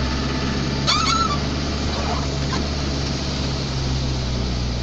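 Car engine running steadily, heard from inside the cabin, under an even hiss. A short, high, bending cry sounds about a second in.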